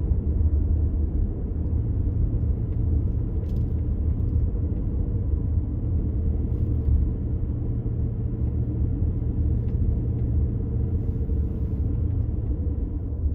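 Steady low rumble of a car driving along a paved road, heard from inside the cabin: engine and tyre noise with no change in speed.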